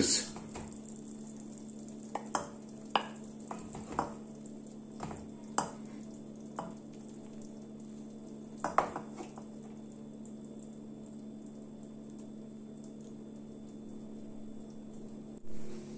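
Wooden spoon stirring and scooping chicken stew in an enamel pan and serving it onto a ceramic plate: a scattering of light scrapes and knocks over the first nine seconds or so. Under it runs a steady low hum and a faint sizzle from the still-hot stew.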